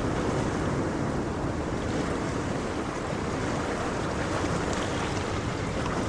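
Ocean waves: a steady wash of surf that eases slightly midway and swells again near the end.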